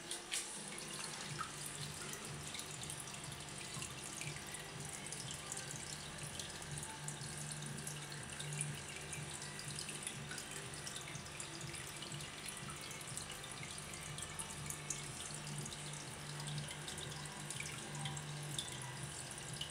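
Aquarium water bubbling and trickling, a dense patter of small drips and pops over a low steady hum. A light knock sounds just after the start.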